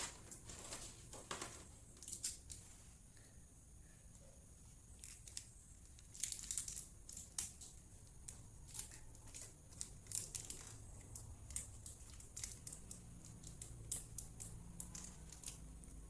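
Faint, irregular clicks and crinkles of hands handling laptop parts and plastic.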